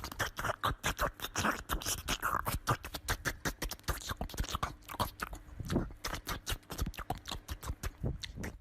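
A dog chewing, with a rapid, irregular run of crisp clicks and crunches, several to the second.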